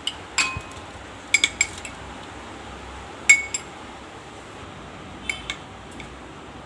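A spoon clinking against a small bowl of mixed honey and ginger cough remedy: short, light clinks that come in pairs about every two seconds, each ringing briefly.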